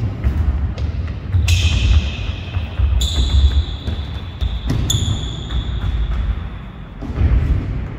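Sneakers thumping and shuffling on a sports hall floor during quick agility footwork. Several high squeals come in: a short sliding one about a second and a half in, then two longer steady ones around the middle.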